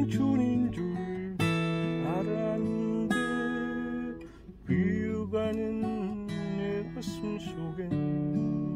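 Acoustic guitar music: strummed chords and held notes, dipping briefly about four and a half seconds in.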